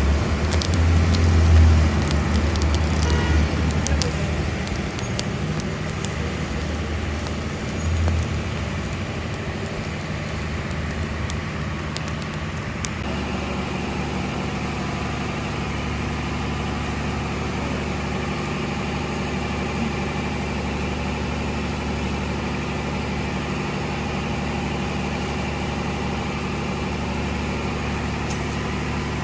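Open wood fire burning around skewered sajji, with scattered crackles and pops over a low rumble. About 13 seconds in the sound cuts to a steady engine-like hum.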